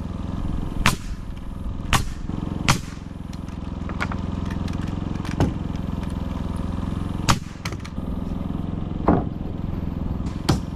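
A motor runs with a steady drone while about six sharp knocks land at irregular intervals, hammer blows on the shed's framing.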